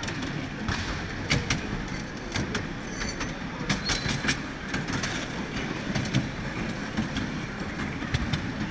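Ride-on miniature train rolling along its small-gauge track, a steady rumble with the wheels clicking irregularly over the rail joints.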